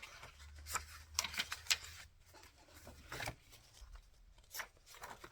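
Paper and card being handled: a handful of short, crisp rustles and taps as journal cards and ephemera are moved and placed, with a faint low hum under the first few seconds.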